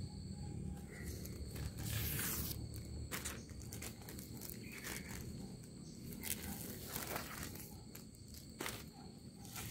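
Irregular short swishing or scraping sounds, about half a dozen, over a steady high insect drone.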